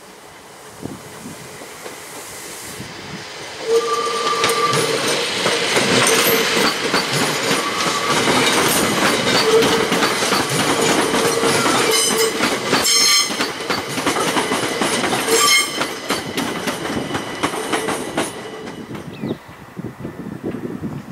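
SNCB AM08 (Siemens Desiro ML) electric multiple unit passing close by, the sound swelling sharply about four seconds in. Its wheels click over the rail joints, and brief steady tones come and go. It fades away near the end.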